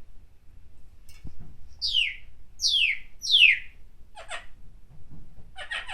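Pet parrot whistling three loud falling whistles in a row, then giving two short rasping calls.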